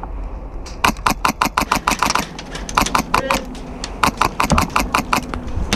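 Rapid airsoft gunfire: sharp cracks in quick strings of several shots with short gaps between them, starting about a second in.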